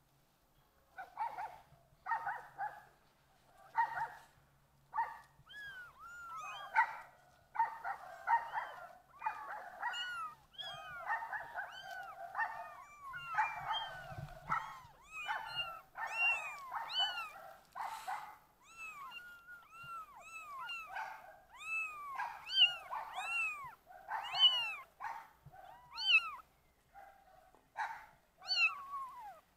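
Several kittens meowing again and again: short, high, thin calls that rise and fall in pitch, often overlapping one another.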